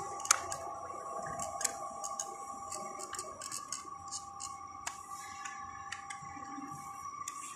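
Scattered light plastic clicks and taps from handling a wall thermostat, over a steady high-pitched whine.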